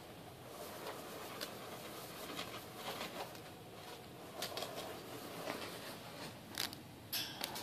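Ferret digging in a tub of dry rice: grains rustling and pattering, with irregular sharp clicks and a louder scratchy burst near the end.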